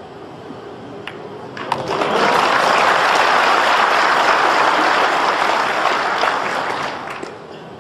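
Audience applauding for a potted ball at a pool table. It starts about two seconds in, just after a couple of sharp clicks of the cue and balls, and fades away near the end.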